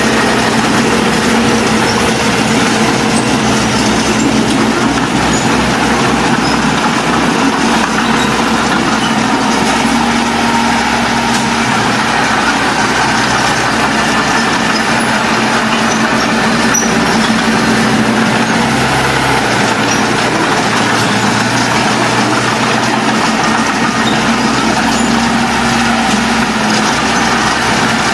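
Diesel engine of heavy earthmoving machinery running steadily, its pitch shifting slightly now and then as it works.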